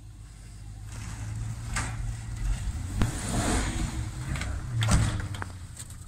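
Jeep Grand Cherokee's V8 engine revving up under load as it tows a utility trailer free of deep snow, the drone building over the first few seconds, with a few sharp knocks along the way.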